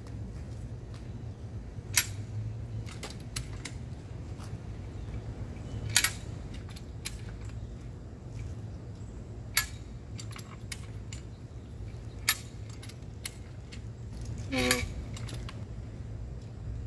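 Harbor Freight farm jack being worked by its handle: a sharp metal clack every three to four seconds as the jack climbs its steel bar, pulling a grounding rod up out of concrete. Near the end there is a longer, ringing metal clank.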